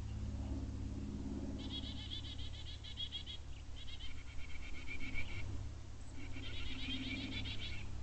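A wild bird calling in three bursts of rapid, repeated high notes, each burst lasting about a second and a half, over a low steady rumble.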